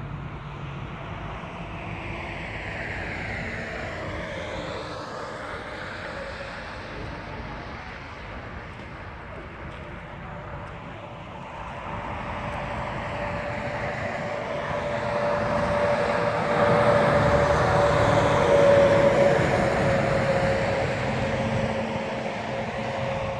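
Highway traffic passing: a few seconds in, a vehicle goes by with a falling whine; then a heavy truck approaches with a steady tyre and engine tone, swells to its loudest about three quarters of the way through, and fades away.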